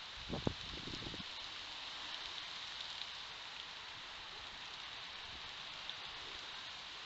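Steady hiss, with a short cluster of low thumps and rustles about half a second in as a red fox moves over dry leaves and sticks. A few faint ticks follow.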